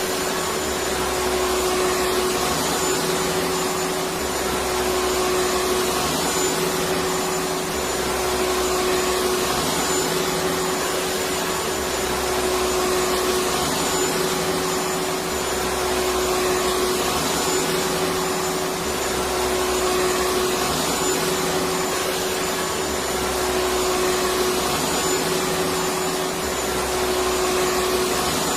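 Electric vacuum cleaner running continuously: a steady rushing of air with a constant motor whine, its level unchanging.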